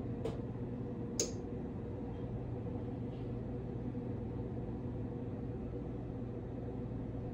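Steady, even hum of a kitchen appliance motor or fan, holding a low pitch and a higher one. A faint tap comes just after the start, and a sharp, short clink about a second in.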